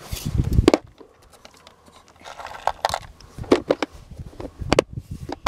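Scattered clicks, taps and knocks of hands handling a clear plastic Plano tackle box, with a denser clatter in the first second.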